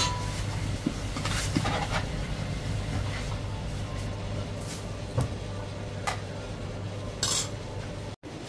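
A steady low background hum, with a few short, soft clatters and rustles as sliced goose and pickled mustard greens are handled in a plastic takeaway tub.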